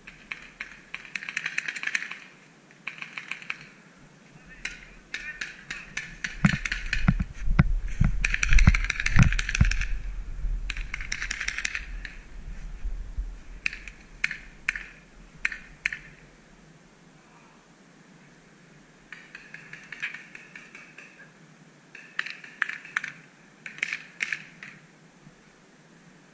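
Paintball markers firing in quick volleys of sharp pops, several players shooting at once, with short pauses between bursts. A low rumble joins in for a few seconds just before the middle.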